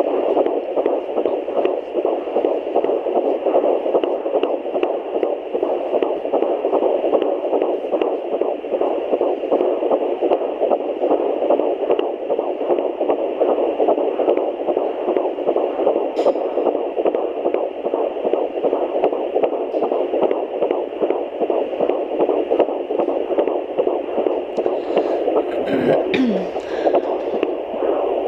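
Fetal heartbeat through a handheld fetal Doppler: a fast whooshing pulse, galloping like a horse, buried in steady static hiss. A brief rubbing crackle comes near the end.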